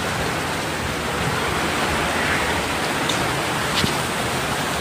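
Heavy rain pouring in a steady, dense hiss, with two faint clicks a few seconds in.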